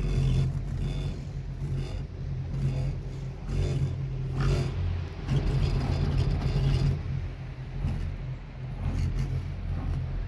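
Wind rumbling on a phone microphone during an open chairlift ride, a steady low rumble that swells and fades, with a few brief rustles.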